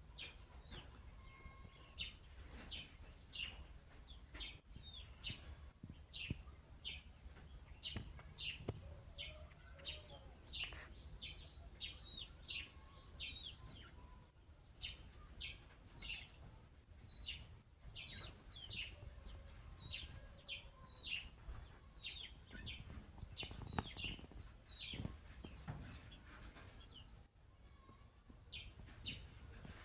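Small birds chirping: short high chirps repeated about twice a second, over a faint low steady background noise.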